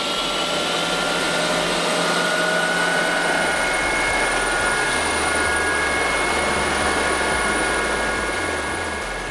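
Helicopter running loud and steady: engine and rotor noise with a high, even turbine whine over it.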